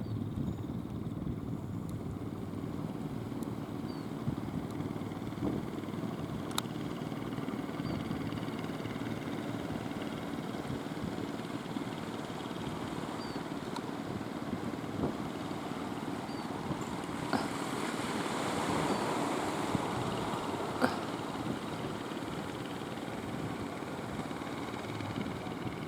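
Fishing boat engines running steadily, a low drone. A few sharp knocks come over it, and a hissing rush swells up and dies away about two-thirds of the way through.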